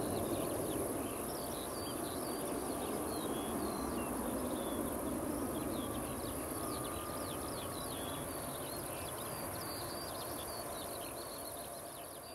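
Distant jet rumble of a Boeing 757-300 climbing away after take-off, slowly fading. Birds chirp and twitter throughout over a steady high-pitched hiss.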